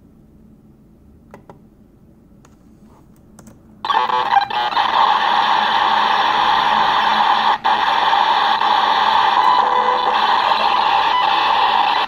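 Raw contents of a computer's RAM (/dev/mem) played as audio by aplay. After a few seconds of near-quiet with a few faint clicks, a loud, even hiss starts suddenly about four seconds in, drops out for an instant midway, and stops abruptly at the end.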